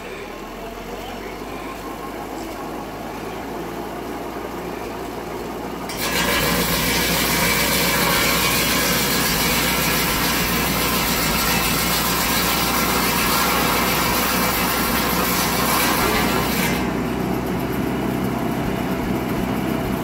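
Large PTO-driven circular buzz saw, powered by a Willys Jeep's engine, cutting wood. The engine and spinning blade run steadily, then about six seconds in the blade bites into the wood with a loud sawing noise that lasts about ten seconds before dropping back to the running engine and blade.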